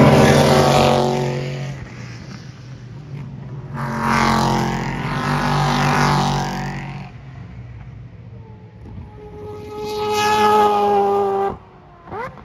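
Sports-prototype race cars passing at speed one after another: three passes, each engine note swelling and then fading away. The last pass cuts off suddenly near the end, followed by a brief rising engine whine.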